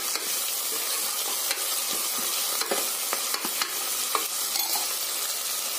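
Chopped onions sizzling in hot sesame oil as they sauté, with a metal ladle stirring them and clicking and scraping against the pot now and then.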